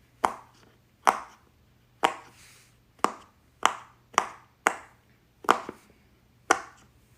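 A fidget popper toy being popped over and over: nine sharp, loud pops at an uneven pace, roughly one every half second to a second.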